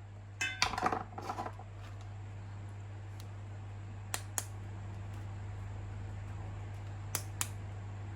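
Light clicks and rustling from objects being handled, a cluster in the first second and a half, then a few single sharp clicks, over a low steady hum.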